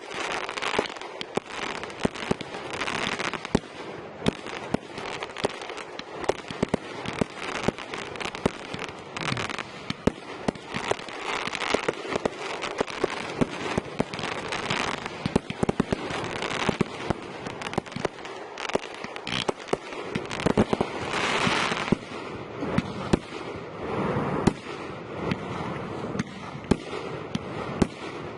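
Fireworks display going off continuously: many sharp bangs and pops, several a second at times, over steady crackling and hissing from shells bursting.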